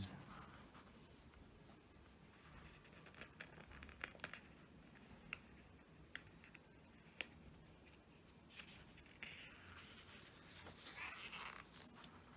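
Faint handling of a large photobook: soft paper rustles as pages are turned, with a few light clicks and taps. Otherwise near silence.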